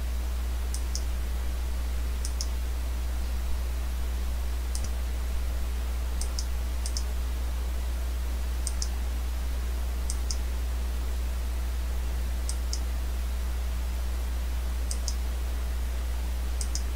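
Computer mouse button clicking about ten times at irregular intervals, each click a quick press-and-release pair, over a steady low electrical hum.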